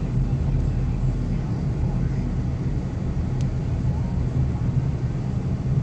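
Steady low rumble inside a moving car's cabin: engine drone and road noise while driving.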